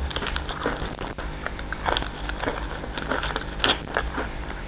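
Close-up crunching and chewing of a crisp, round Weilong rose-petal biscuit: a run of short, irregular dry cracks.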